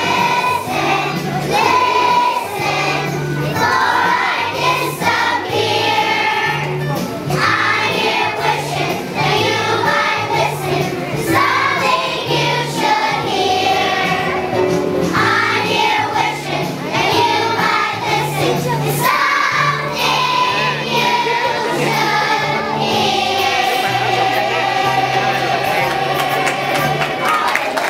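A group of kindergarten children singing a song together to a recorded or piano accompaniment with a steady bass line.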